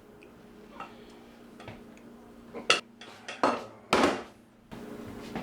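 Cutlery clinking and scraping against dinner plates in a few separate strokes, over a faint room hum.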